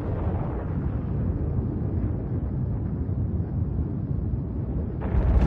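Deep, steady rumble of an atomic bomb explosion. About five seconds in, a louder rushing blast noise breaks in suddenly.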